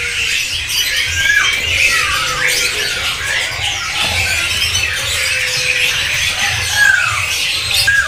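Many caged songbirds chirping and squeaking over one another, a dense chatter of quick, mostly downward-sliding calls.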